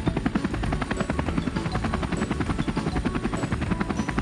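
Helicopter rotor sound effect: a rapid, even chopping of blades for a toy helicopter in flight.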